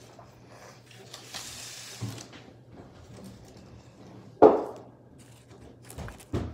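Objects being handled on a tabletop: a scratchy rustle lasting about a second, then a sharp knock about four and a half seconds in, and two lighter knocks near the end.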